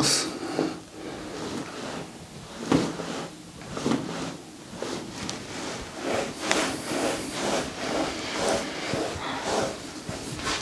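Hands rubbing and shifting over the skin of the neck and on the head during a neck massage, with soft rustles and a few light clicks.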